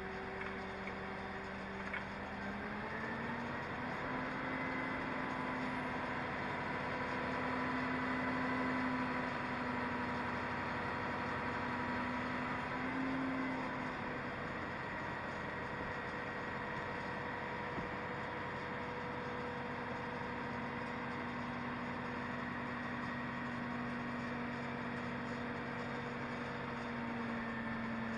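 Hydraulic crane's diesel engine running, heard from the operator's cab. Its speed rises about three seconds in, eases off around the middle, and picks up again about two-thirds of the way through, as it is throttled to drive the hydraulics for the lift.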